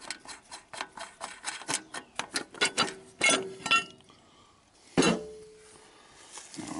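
Small metallic clinks and ticks as the valve-cover nuts and washers are spun off by hand and the rocker cover is worked loose on a Belarus T25A diesel engine. About five seconds in comes a single louder metal clank with a short ring.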